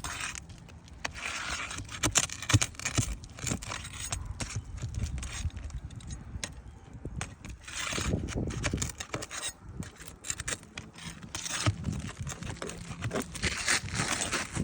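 Roof shingles being pried up and worked loose: irregular scraping and crackling with scattered sharp clicks.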